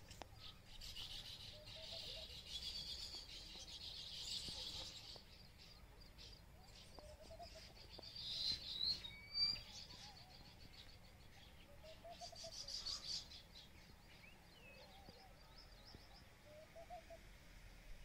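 Baya weaver birds chattering and chirping in several short bouts a few seconds apart, with a brief high whistle about nine seconds in.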